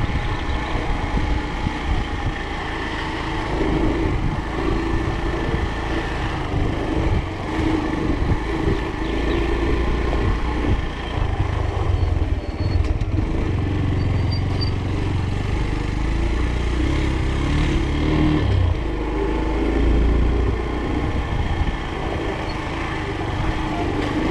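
Engine and road noise of a moving vehicle, running steadily at travelling speed.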